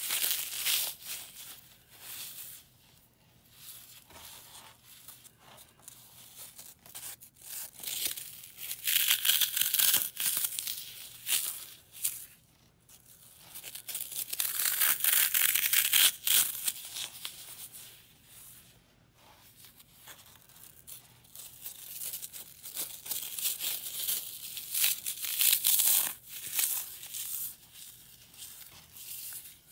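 Dry floral foam crushed and crumbled between fingers, a crisp crackly crunching. It comes in several surges of two or three seconds, with quieter stretches between.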